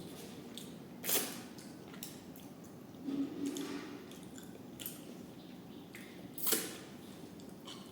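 Wet eating sounds from a meal of rice with lentil dal and vegetable curry: squishing and chewing, with three short, louder smacks, about a second in, around three seconds, and near six and a half seconds.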